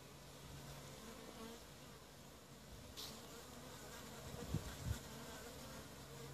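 Honeybees buzzing faintly as they fly in and out at the hive entrance, a steady wingbeat hum that swells and fades as bees pass close. There is a sharp click about three seconds in and two low thumps about four and a half seconds in.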